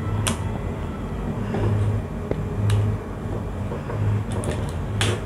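Screwdriver and plastic push-button contact block being handled while a wire is fitted to its terminal: a few sharp clicks, the loudest near the end, over a low hum that swells and fades about once a second.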